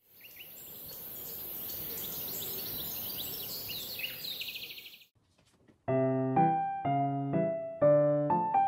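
Birds chirping over a steady hiss, fading in and cutting off abruptly about five seconds in. After a short pause, piano music starts.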